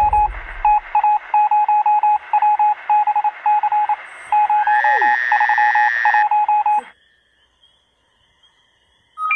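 Electronic beeping: rapid runs of short beeps at one pitch, like Morse code or telephone tones, with a short rising tone about five seconds in. It cuts off suddenly about seven seconds in.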